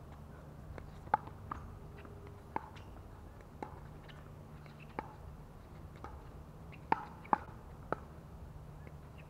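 Pickleball rally: about eight sharp hollow pops of paddles hitting the plastic ball, roughly a second apart and coming quicker near the end.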